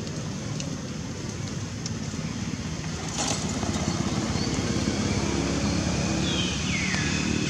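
A motor vehicle engine running steadily, growing louder about three seconds in. A short, high falling chirp near the end.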